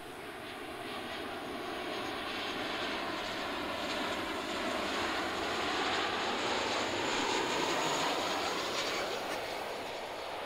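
A US Navy P-8 Poseidon's twin CFM56 turbofan engines on final approach, gear down, a rushing jet noise with a faint high whine. It swells as the aircraft passes close, loudest about seven or eight seconds in, then eases as it descends toward the runway.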